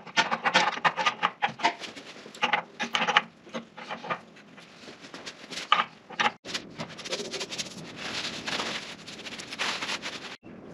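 Rapid metallic clicking of a 9/16 wrench working back and forth on the jointer's cutterhead mount bolts as they are tightened. Later comes a soft rubbing of a paper towel wiping over the painted cast-iron base.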